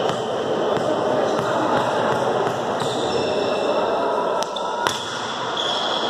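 Volleyball play in a large gymnasium: the ball is hit sharply about five seconds in, over the steady chatter of players' voices in the echoing hall.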